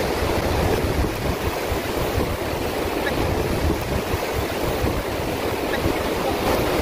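Steady rush of surf breaking and washing up a sandy beach, mixed with wind buffeting the microphone.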